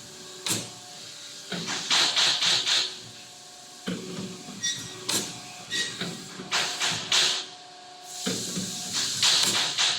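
Automatic CNC pipe bending machine running: a steady hum with short bursts of hissing every second or two as it works through its cycle.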